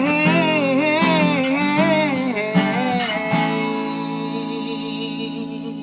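Acoustic guitar strummed under a man's voice singing a wavering held line. About three seconds in, a last chord is struck and left to ring, fading slowly.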